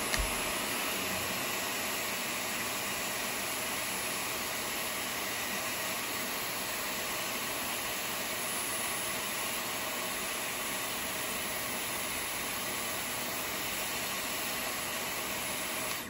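Dyson Airwrap styler blowing air through its curling barrel, a steady whoosh and hiss, while a wrapped section of hair is held on the barrel to set the curl. The airflow cuts off near the end.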